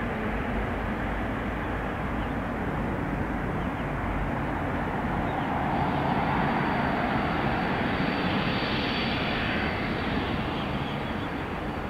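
Boeing 787-8 airliner's Rolls-Royce Trent 1000 turbofan engines running as it turns onto the runway: a steady jet rumble. About six seconds in it swells and a high whine sets in as the engines spool up for takeoff.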